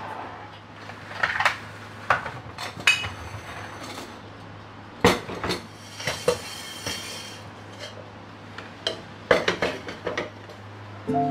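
Kitchen items handled on a granite countertop: metal ladles and spoons clinking and rattling in their utensil holder, and a stone mortar and other things knocking down on the stone. Scattered clinks and knocks at irregular intervals.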